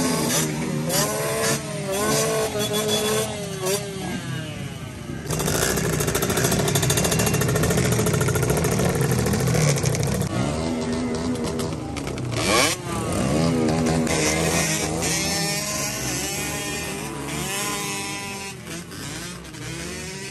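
Several small dirt-bike and pit-bike engines revving together, their pitch rising and falling over and over, loudest in the middle. Near the end they pull away and the sound fades.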